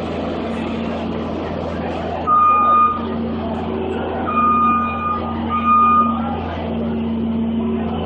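New Holland skid steer's diesel engine running steadily, with its backup alarm sounding three loud beeps of one pitch, at about two, four and five and a half seconds in.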